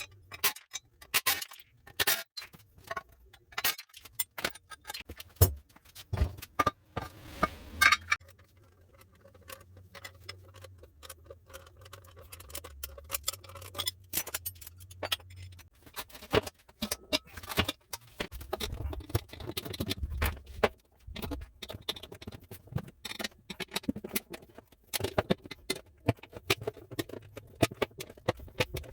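Irregular metallic clicks, taps and clinks of hand tools and motorcycle parts being handled during disassembly, with a faint low hum for several seconds in the middle.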